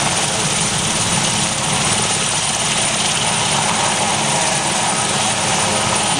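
Airbus Super Puma-family twin-turbine helicopter hovering low and lifting away: a loud, steady rotor beat over turbine noise, with a thin high whine.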